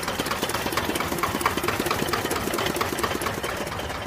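Small stationary diesel engine driving a sugarcane juice crusher, running steadily with a rapid, even clatter.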